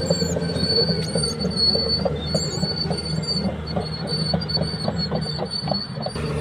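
Caterpillar bulldozer's steel tracks squealing and knocking in a steady rhythm, about two to three knocks a second, over the diesel engine's hum: the noise of a damaged track idler and rollers.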